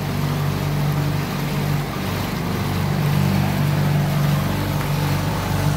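Small 10 hp outboard motor running steadily at speed, pushing a small open boat across choppy water, with the rush of water and wind under the engine drone.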